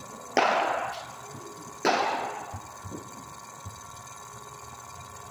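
Two sharp knocks about a second and a half apart, each trailing off briefly, with a few faint taps after them.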